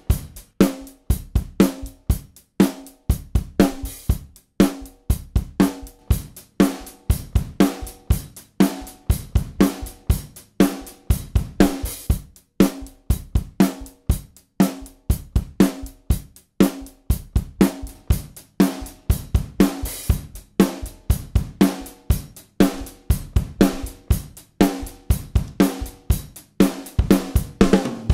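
Recorded drum kit groove with kick, snare, hi-hat and cymbals, playing a steady repeating beat. It runs through an Acme Opticom XLA-3 optical tube compressor set to its normal response.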